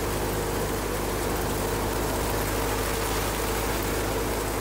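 Wheat thresher running steadily with a constant mechanical hum, as threshed wheat grain pours from its outlet chute.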